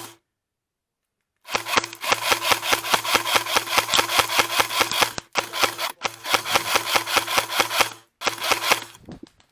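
Airsoft electric gun firing long full-auto bursts: a rapid, even stream of sharp cracks over a steady motor and gearbox whine. It starts after a second and a half of dead silence and pauses briefly twice.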